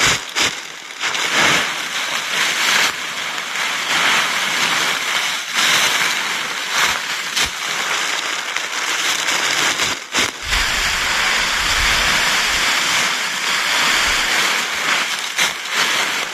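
Dry fallen leaves crackling and rustling as armfuls are scooped up and packed into a woven bamboo basket. A low rumble joins about ten seconds in.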